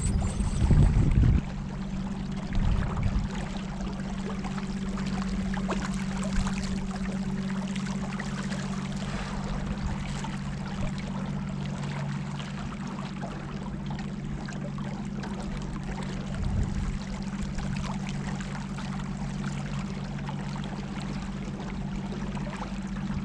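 Small boat under way: its motor runs at a steady hum while water rushes and splashes along the hull. A few short low rumbles come through, the loudest about a second in.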